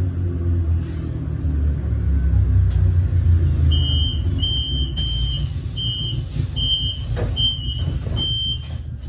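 Door-closing warning beeper of a Solaris Urbino 18 electric bus: about seven short high beeps, evenly spaced, starting about four seconds in, signalling that the doors are about to close. Underneath is the steady low rumble of the bus interior.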